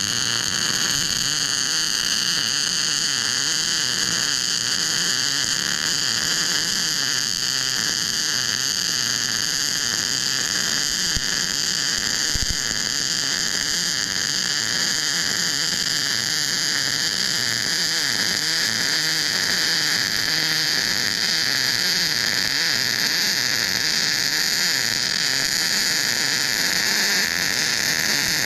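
MIG welder arc burning continuously on steel under 75% argon / 25% CO2 shielding gas: a steady, even hiss with no breaks.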